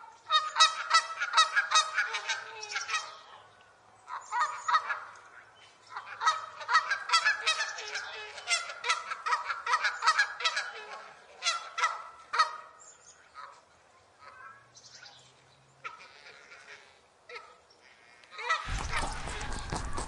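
Geese honking in bursts of many quick, overlapping calls, then sparser and quieter calls. Near the end the honking gives way to a steady hiss.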